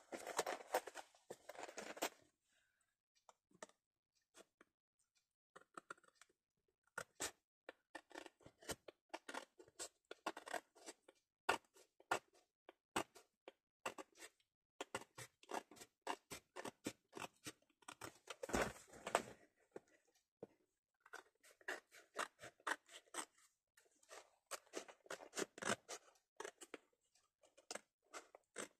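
Paper being trimmed with a blade guided along the edge of a vanity-case lid: faint runs of quick, scratchy cutting strokes in bursts, with a pause of a few seconds about two seconds in.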